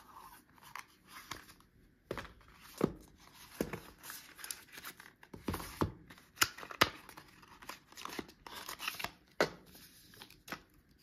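Cardboard phone box and paper packaging being handled: lid and inner tray lifted and slid, paper leaflets and a wrapped USB-C cable pulled out. Irregular sharp clicks, scrapes and crinkling rustles.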